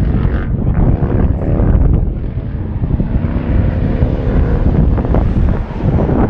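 Wind buffeting the microphone in a heavy low rumble, with a vehicle passing in the middle: a hiss that swells and fades over a few seconds.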